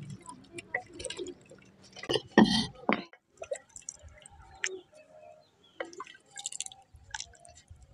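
Wooden ladle stirring and scooping thick kadhi in a clay pot: wet dripping and splashing of the curry, with light knocks and scrapes of the ladle against the pot. The loudest knock comes about two and a half seconds in.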